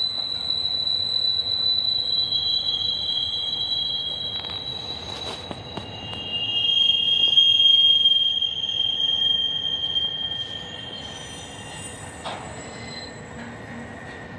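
Freight train rolling past with its wheels squealing on the rails: several high, thin squeals overlapping and shifting in pitch over the rumble of the cars, loudest about halfway through, then fading.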